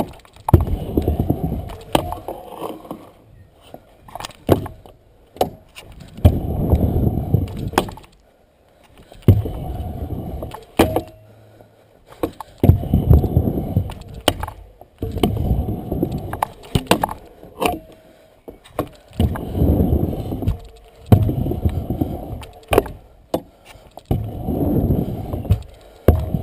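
Stunt scooter's wheels rolling on a concrete half pipe in repeated rushes, one every two to three seconds as it swings through the bottom and up each wall. Sharp clacks and rattles of the deck and bars come in the lulls between the rushes.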